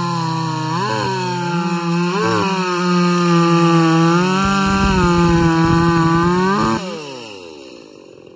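Ported Echo 43cc two-stroke chainsaw running at high revs under load as it cuts through hard beech, with two short jumps in pitch about one and two seconds in. About seven seconds in it leaves the cut and the revs fall sharply away.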